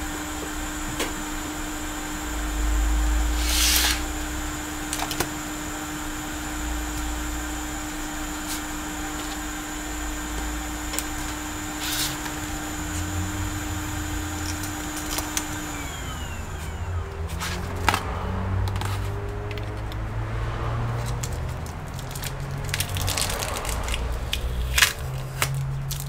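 A steady electric hum from a bench machine, with a faint high whine above it, winds down and stops about two-thirds of the way in. Then come scattered clicks and light knocks as a laptop motherboard is handled and fitted into its plastic and metal chassis.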